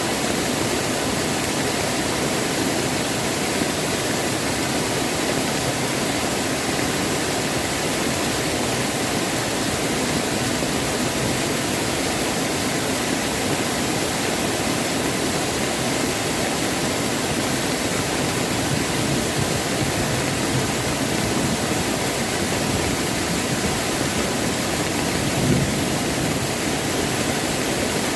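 Mountain stream water rushing steadily over rocks in a valley, an even unbroken rush, with one brief small knock near the end.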